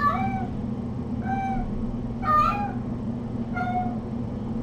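Kitten meowing four times, about once a second, in short calls; the third is the loudest and highest. A steady low hum runs underneath.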